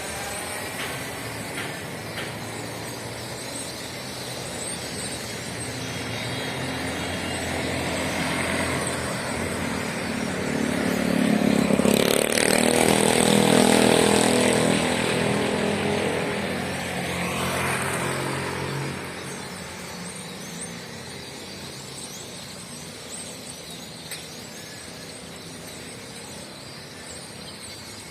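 A motor vehicle passing by: its engine grows louder to a peak about halfway through, then fades away with a falling pitch.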